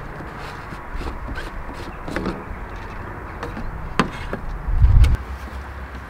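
Scattered clicks and knocks of hard plastic being handled, with a sharp click about four seconds in and a low thump just after: the screw cap of a PVC-pipe solar shower tank coming off and a plastic water jerrycan being lifted to fill it.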